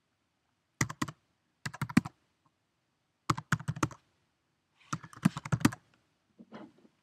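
Typing on a computer keyboard: four quick runs of keystrokes with short pauses between them.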